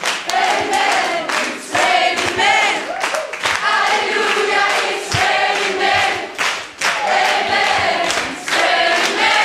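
Many voices singing together in chorus, choir-like, with crowd noise mixed in.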